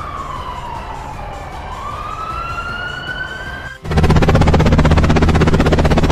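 Ambulance siren wailing, sliding down in pitch and then back up. Near the end it cuts off suddenly and a louder helicopter rotor sound takes over, a rapid steady chopping.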